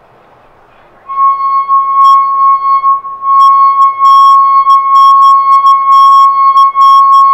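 Wine glass holding 100 mL of water singing under a fingertip rubbed around its rim: one steady high ringing tone that starts about a second in, wavering in loudness as the finger circles and fading briefly about three seconds in. The tone drives a matching glass into sympathetic resonance, enough to move a wire lying across its rim.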